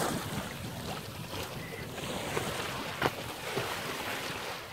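Sea water rushing along a sailing yacht's hull, with wind buffeting the microphone. A short sharp splash comes about three seconds in.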